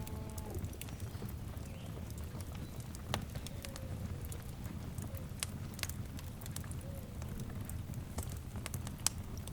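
Wood fire burning with a steady low rumble and a few sharp, sparse crackles and pops.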